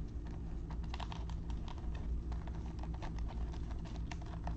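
Light, irregular clicking and crackling of a shrink-wrapped trading card box being handled by gloved hands as they work at getting it open, over a low steady hum.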